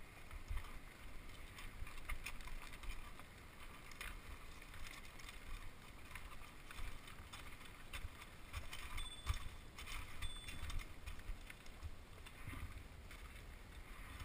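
Bicycle ridden over gravel and railway ballast: tyres crunching and the bike rattling over the stones, with wind buffeting the microphone in uneven low gusts.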